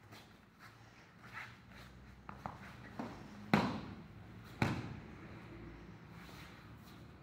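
Bare feet shuffling on foam puzzle mats, then two sharp thuds about a second apart, the first the louder, as a body is thrown face-down onto the mat and pinned.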